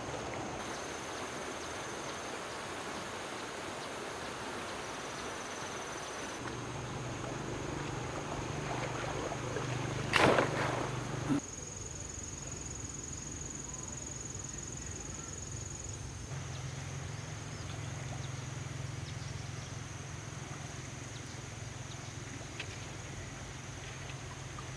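Insects calling outdoors: a steady high-pitched tone over a background hiss and a low hum. A sudden loud noise about ten seconds in is followed by a short knock about a second later.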